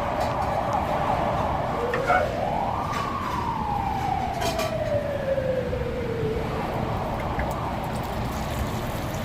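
An emergency vehicle's siren wails once: it rises quickly, then falls slowly over several seconds, over steady street noise.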